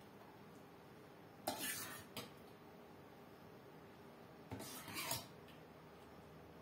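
Metal ladle scraping against a steel cooking pot while scooping thick chocolate cream, twice, about three seconds apart, with a light tap of metal just after the first scoop.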